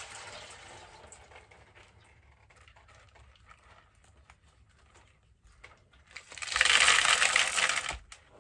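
Leca clay pebbles poured from a small pot into a planter around a plant's roots: a dense rattling pour lasting about two seconds, starting about six seconds in, after a few faint clicks and rustles of handling.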